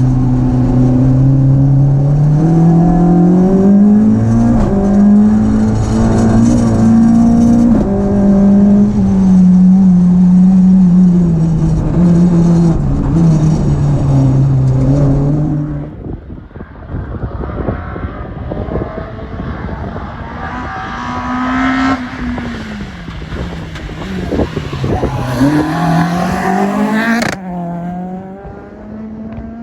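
Renault Clio 172 rally car's four-cylinder engine running hard under load, its pitch rising and falling as it climbs through the revs and changes gear. About halfway through it drops suddenly to a quieter, more distant engine note that keeps rising and falling, with another abrupt change shortly before the end.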